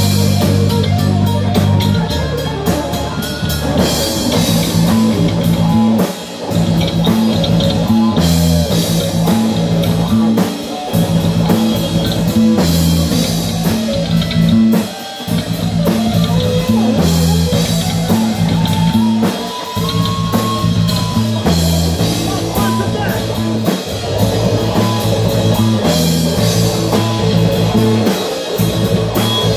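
Live heavy metal band playing: distorted electric guitar and bass chugging a low riff over a drum kit with cymbals. The band stops for a moment three times, in the first half, before crashing back in.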